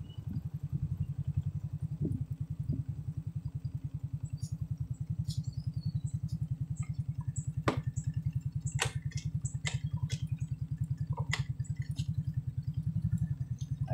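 Small motorcycle engine running at low speed with an even, rapid pulsing beat as the bike rolls slowly along.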